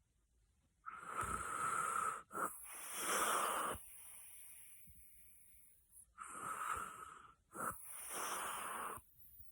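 A person snoring loudly: two long snoring breaths about five seconds apart, each broken by a short pause partway through.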